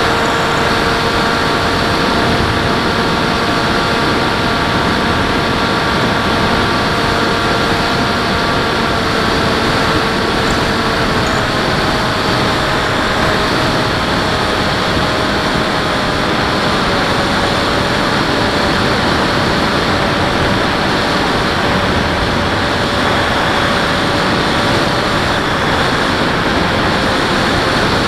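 Model airplane's motor and propeller heard from the onboard camera, a steady whine over a constant rush of wind. The whine steps down in pitch about a third of the way in and then sinks slowly.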